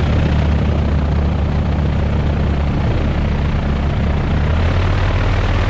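Light aircraft's piston engine and propeller running at low power while taxiing, a steady low drone.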